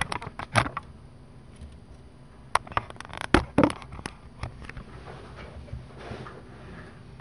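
Irregular knocks, clicks and rustles from handling close to the microphone as the camera is moved about, with the loudest knocks about half a second in and around three and a half seconds in.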